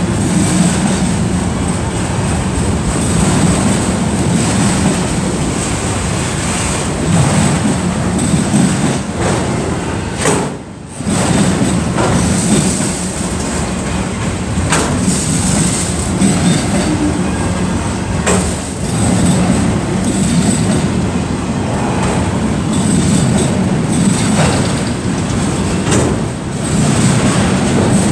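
Freight train of autorack cars rolling past at close range: a steady rumble of steel wheels on rail, with irregular clacks as the wheels cross rail joints. The sound briefly dips about ten seconds in.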